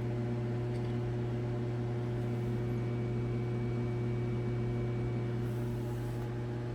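A steady low mechanical hum with a few faint steady tones above it, unchanging throughout.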